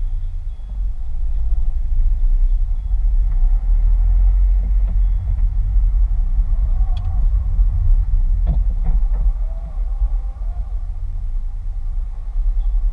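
Car driving slowly, heard from the cabin: a steady low engine and road rumble, with a few light knocks and rattles around the middle.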